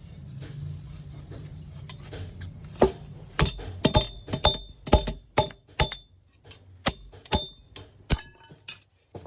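Sharp metal-on-metal strikes, about fifteen in an irregular run starting about three seconds in, each leaving a bright ringing tone; a low steady hum comes before them.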